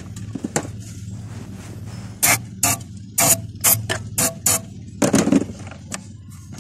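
Aerosol cleaner sprayed in short hissing bursts into a car's throttle body to loosen stubborn dirt: about seven quick squirts a couple of seconds in, then one longer burst near the end.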